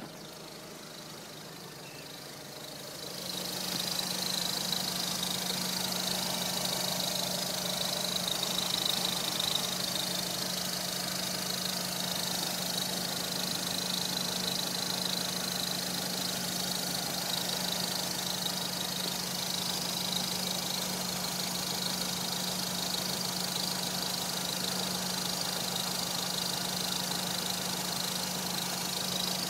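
Opel Astra H OPC's Z20LEH 2.0-litre turbo four-cylinder idling warm, with a steady high chirping squeak over the engine note, growing louder about three seconds in. The squeak comes only at warm idle and remains with the ribbed drive belt and its pulley removed, so it is not from the belt drive.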